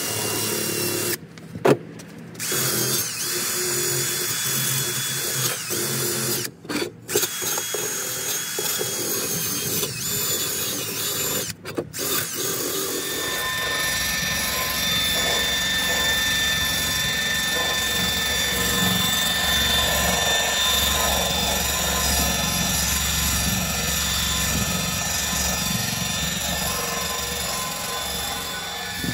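Cordless power drill running, cutting out briefly a few times in the first half, then running steadily without a break from about halfway.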